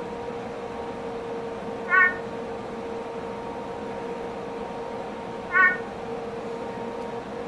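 Male peacock tree frog (Leptopelis vermiculatus) calling: two short, loud calls about three and a half seconds apart, over a steady hum.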